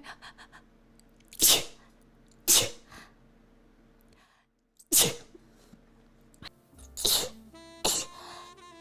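A person sneezing again and again: about five sharp sneezes at uneven gaps of one to two seconds, the first the loudest.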